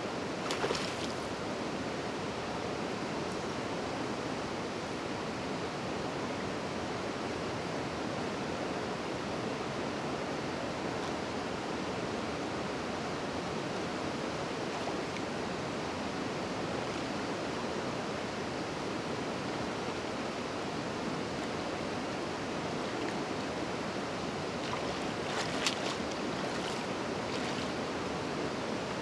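Steady rushing of river water, an even hiss with no breaks. A few brief clicks and rustles come about a second in and again near the end.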